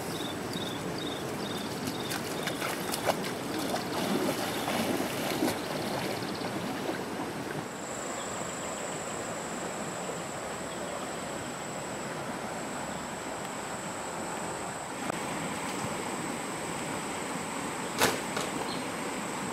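A shallow stream running and trickling over rocks. A steady high whine joins about eight seconds in, and a single sharp click comes near the end.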